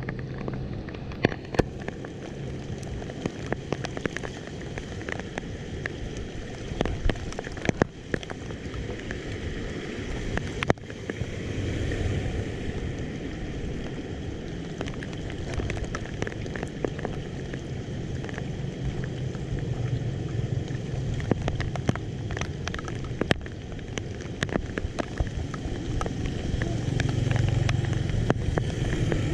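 Rain falling: a steady hiss of water with many scattered sharp ticks of drops.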